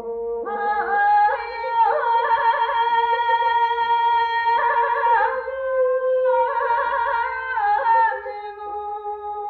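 Mongolian long song (urtyn duu) sung by a male long-song singer in the Achit style, from a 1976 radio recording. He holds long high notes and breaks them with quick trilling ornaments, and steps the melody down near the end.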